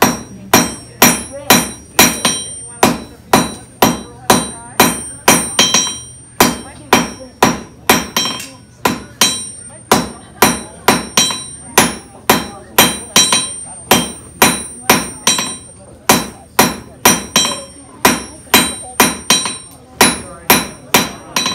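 Blacksmith's hand hammer striking a red-hot iron nail rod on an anvil in a steady rhythm, about two to three blows a second, each blow leaving a bright metallic ring. The smith is hand-forging a nail, hammering and rotating the rod to draw it out.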